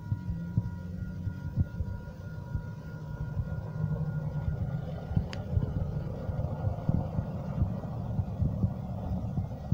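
Hi-rail pickup truck running along the railroad track, its engine and wheels giving a low rumble with irregular thumps. A grade-crossing signal's steady ringing tones sound in the first half and stop about five seconds in, and there is one sharp click near the middle.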